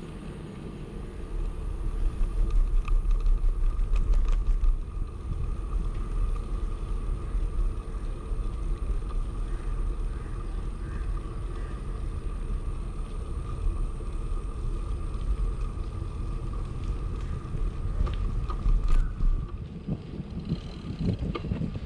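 Rumble of wind and road noise on a riding bicycle's microphone, strongest about two to five seconds in and dropping away near the end, with a faint steady whine under it.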